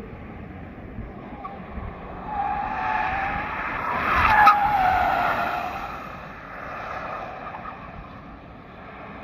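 Hyundai Ioniq Electric's tyres squealing as the car corners hard past on the track. The squeal wavers, builds to its loudest about four and a half seconds in, and then fades, over a steady rush of tyre noise.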